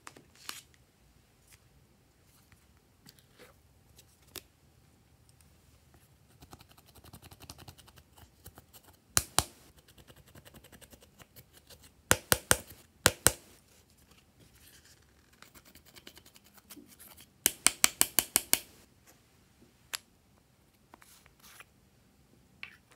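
A small applicator scraping pressed eyeshadow out of a palette to crumble onto slime, making quick runs of sharp scratching clicks. There are three short runs, the last the densest, with a few single clicks between.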